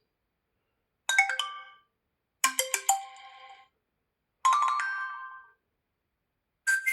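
Tecno Pop 2F smartphone notification tones played one after another: three short, different electronic chimes of a few notes each, with gaps of silence between them. A fourth tone starts just at the end.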